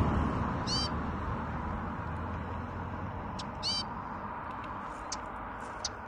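Two high, arched bird calls about three seconds apart, with a few short high ticks between and after them. A low rumble fades away over the first second.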